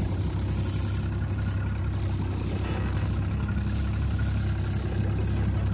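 Boat's outboard motor running steadily at low speed, a low even drone, with a high hiss that comes and goes.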